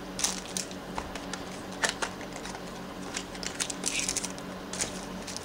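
A pack of trading cards being opened and the cards handled: a scatter of small, irregular clicks and crackles.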